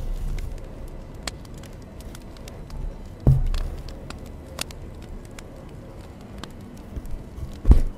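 Needle and embroidery thread working through cotton fabric held taut in an embroidery hoop. There are two low thumps, about three seconds in and near the end, with faint scratchy ticks between them.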